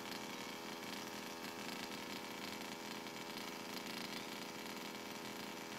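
Faint, steady drone of a small petrol two-stroke engine, the HPI Baja 5B SS radio-controlled buggy's, holding an even pitch without revving.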